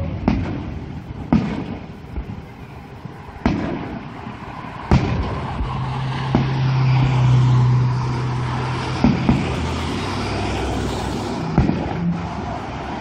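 Aerial fireworks shells bursting overhead: about half a dozen sharp booms at irregular intervals, a second or more apart. A low steady drone from a nearby car runs through the middle.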